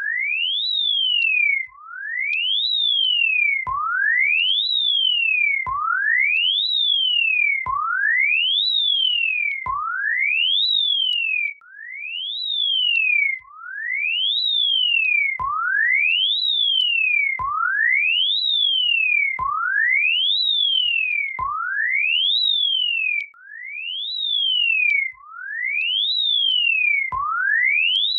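Emergency alert system alarm tone: a single pure electronic tone that sweeps quickly up and then falls partway back, like a siren wail. It repeats about every two seconds, and some sweeps begin with a faint click.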